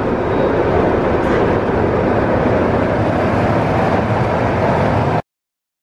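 Kong, a Vekoma suspended looping coaster, with its train running along the steel track: a loud, steady rumble. It cuts off suddenly about five seconds in.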